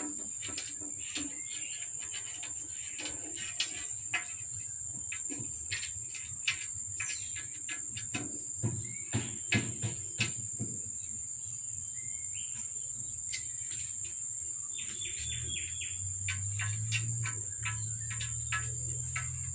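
Steady high-pitched insect drone, with scattered light clicks and a few short chirps; a low hum joins in about three quarters of the way through.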